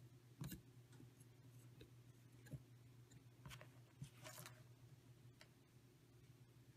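Near silence with a low steady hum. A few faint taps and rustles come from hands handling the solder wire and soldering iron on the workbench.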